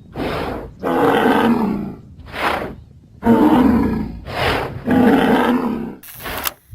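Large animals roaring: about six long, loud roars in quick succession. In this audio fiction they are heard as glyptodonts calling and fighting.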